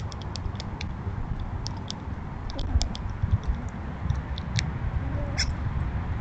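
Backyard outdoor sound: scattered short, high chirps and ticks over a steady low rumble, with a slightly longer chirp near the end.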